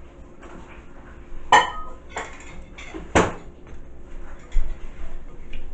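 Fork clinking against a plate while eating: two sharp clinks about a second and a half apart, then a dull knock near the end.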